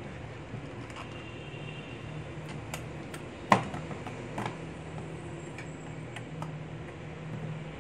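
Small clicks and taps of hard 3D-printed plastic parts being handled and pressed together as a seat holder is fitted onto a model tractor chassis, with one sharper knock about halfway through, over a low steady hum.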